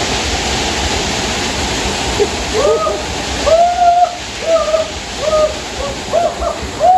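Waterfall pouring steadily. From about two seconds in, a run of short hooting cries comes about twice a second over the rush of the water.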